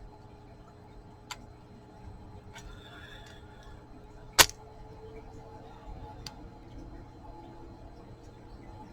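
Jewellery being handled: a few sharp clicks of beads or a clasp knocking, one louder click about four and a half seconds in, with faint rubbing around three seconds.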